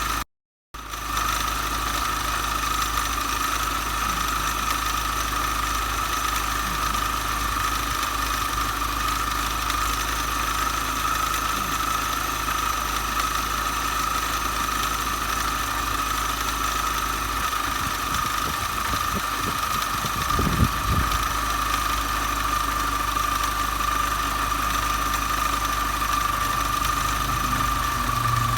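MINI Cooper S R53's supercharged 1.6-litre four-cylinder engine idling with a steady high-pitched whine over it, the abnormal noise the owner is recording. A few low knocks sound about twenty seconds in.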